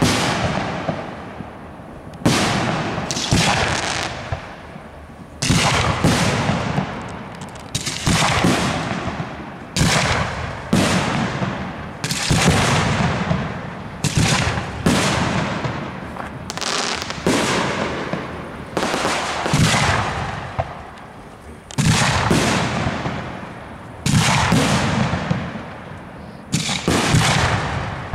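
Aerial fireworks display: shell bursts banging one after another, a bang every second or two and some in quick pairs, each trailing off in an echo.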